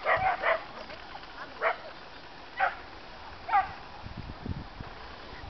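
A dog barking: three quick barks, then three single barks about a second apart.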